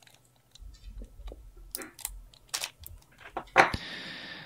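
Small plastic zip-lock bags of electronic components crinkling and rustling as they are handled, with light crackles and clicks, turning into a louder, steady rustle in the last second.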